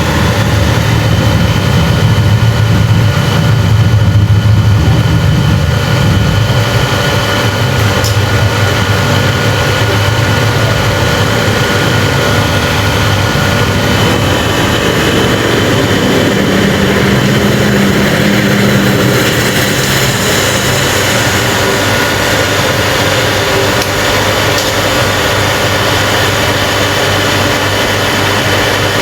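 Factory machinery running: a steady, loud mechanical drone with a deep hum and several steady whining tones above it.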